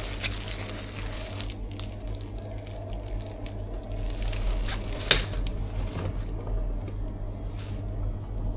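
Quiet handling noises from assembling a cream-and-crepe cake: light scrapes and scattered small clicks of tools and containers, with one sharper click about five seconds in, over a steady low hum.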